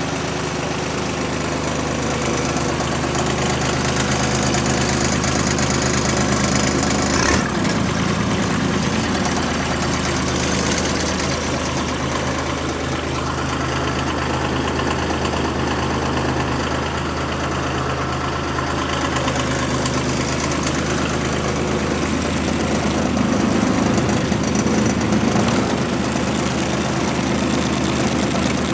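The 26 hp diesel engine of a Ford garden tractor idling steadily, with a single sharp knock about seven seconds in.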